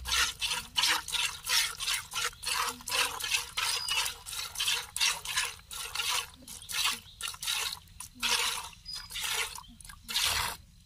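Cow being milked by hand: streams of milk squirting into a plastic bucket in a steady rhythm of short hissing squirts, about two to three a second, as the hands alternate on the teats.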